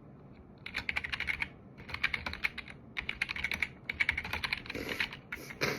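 Typing on a computer keyboard: several quick bursts of rapid keystrokes, each about half a second long, with short pauses between them. Near the end comes one louder short sound.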